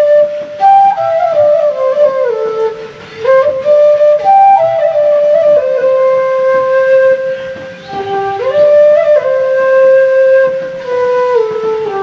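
Bamboo transverse flute (bansuri) playing a slow melody of long held notes, joined by short slides up and down between them.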